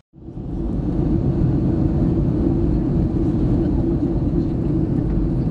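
Jet airliner cabin noise in flight, heard inside the cabin: a steady low rumble of engines and airflow that fades in over the first half second.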